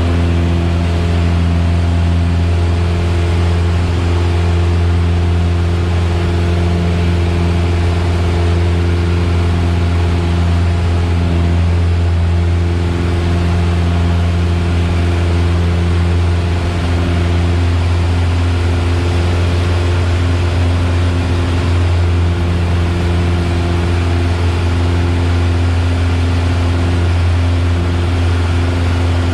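Piper Warrior's four-cylinder Lycoming engine and propeller running at a steady power setting, heard from inside the cabin as an even, low drone.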